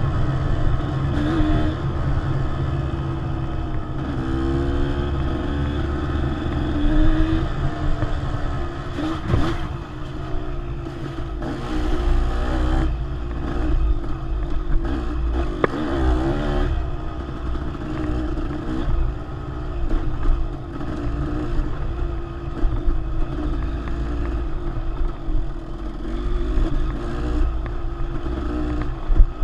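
Dirt bike engine running under load on rough single track, its revs rising and falling as the rider works the throttle, with a few sharp knocks.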